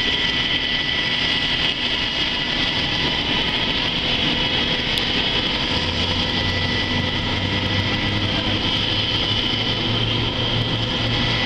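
Sikorsky UH-60 Black Hawk's twin T700 turboshaft engines running during a ground engine run, a steady high-pitched whine. About six seconds in a low hum sets in, and it steps up in pitch near the end.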